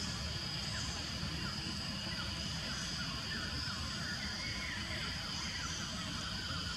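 Outdoor ambience: a steady high insect drone with many short bird chirps scattered through it, over a low rumble.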